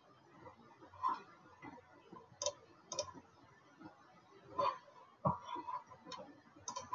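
A few scattered, faint clicks of a computer mouse, spaced irregularly, about one every second.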